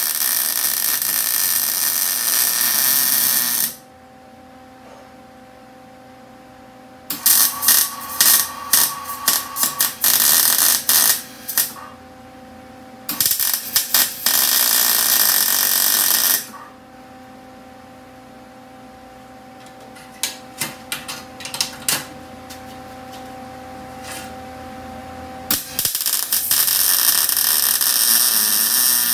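Wire-feed (MIG) welder arc crackling and sizzling as the accelerator pedal bracket is welded to a VW Bus panel. There are several welds of three to five seconds each, with pauses between them and a few short spurts around two-thirds of the way through. A faint steady hum runs underneath.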